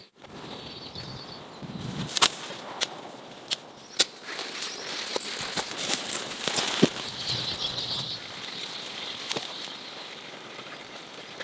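A series of irregular sharp knocks and cracks of wood being handled or worked by hand, the loudest about two seconds in, over birds chirping in the background.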